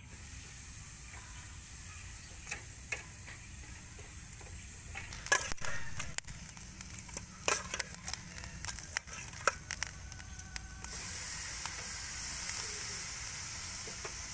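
Marinated fish sizzling on a charcoal grill over hot coals, with scattered crackles and pops. Near the end the sizzle gets louder as another fish is laid on the grate.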